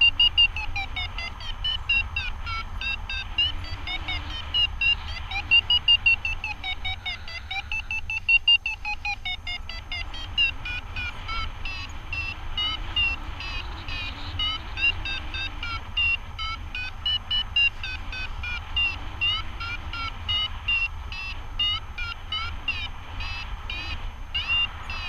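Paragliding variometer beeping rapidly, several short beeps a second, its pitch rising and falling as the climb rate changes, signalling that the glider is climbing. A steady low wind rumble runs underneath.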